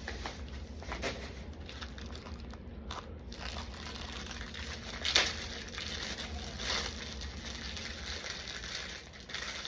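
Packaging crinkling and rustling as it is handled, with scattered sharp clicks; the loudest crackle comes about five seconds in.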